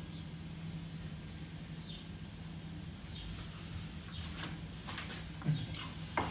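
Faint background: a bird chirps a short falling note about once a second over a low steady hum. A few light knocks come near the end.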